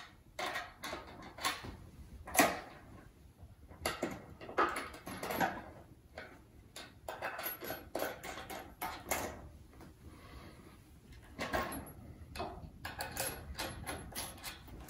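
Irregular metallic clicks and clinks of a 1/2-inch deep-well socket turning bolts into a walnut table base.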